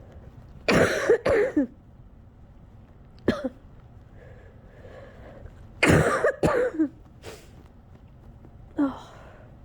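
A person coughing from a lingering chest cold, late in a long coughing fit. There is a run of coughs about a second in, a single short cough a few seconds later, another run of coughs around the middle, and a smaller cough near the end, with shaky breathing between them.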